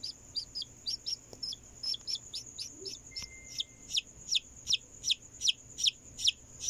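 Newly hatched Peruvian gamefowl chick peeping over and over: short, falling peeps, paired at first, then single, louder and about three a second from about halfway on. A steady high-pitched whine runs underneath.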